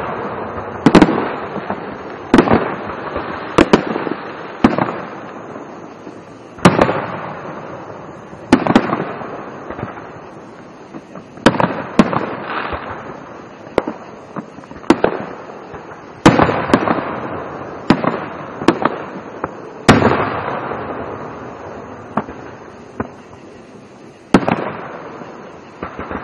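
Aerial fireworks shells bursting one after another in a display. There are sharp bangs every second or two, each trailing off in a long echo.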